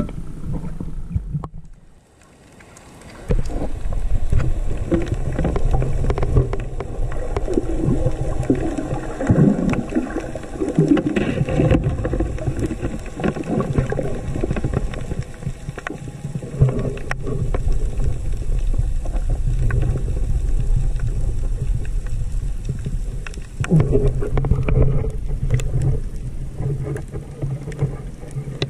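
Muffled underwater noise picked up by a diver's camera: a steady low rumble with bubbling and wavering low tones, after a brief quiet dip about two seconds in as the camera goes under.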